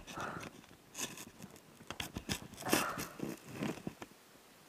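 Irregular rustling and crackling of leaves and plants brushing against a camera held low in the undergrowth, with scattered sharp clicks. It fades near the end.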